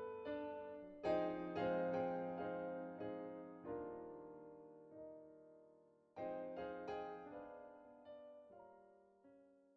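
Slow solo piano music: single notes and chords, each ringing and dying away, fading out near the end.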